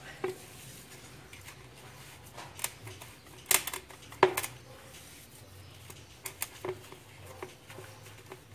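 Gloved hands dropping wet sand-and-cement mortar into a plastic bowl and pressing it down: scattered soft thuds and taps of mortar and hands against the bowl, the loudest pair a little before the middle.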